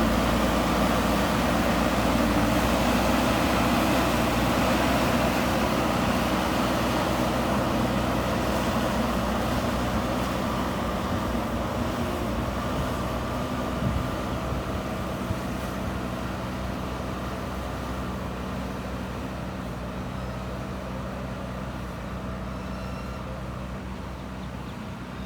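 JCB 3DX Super backhoe loader's diesel engine running steadily, with two brief knocks about midway; the sound slowly fades.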